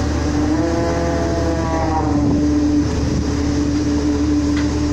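A fishing boat's engine and deck machinery running with a steady hum. A higher whine joins about half a second in, rises slightly and fades out after about two seconds.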